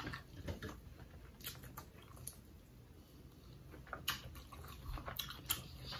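Faint close-up eating sounds: chewing, with scattered small clicks and crackles from lobster and shrimp shells being picked at and peeled by hand, a few sharper clicks about four to five seconds in.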